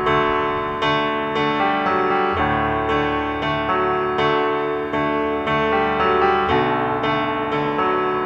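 Background piano music: a steady run of single notes over sustained chords.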